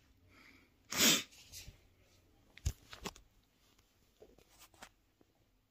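A person's short, sharp burst of breath about a second in, followed by a few faint clicks and small noises.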